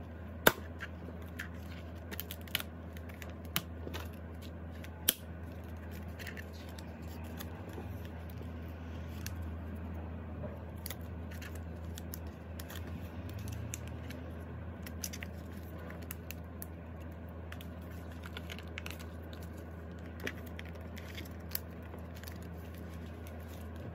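Photocards being handled and slid into clear plastic binder sleeves: soft crinkling of the plastic with scattered sharp clicks and taps, the loudest about half a second in and about five seconds in, over a steady low hum.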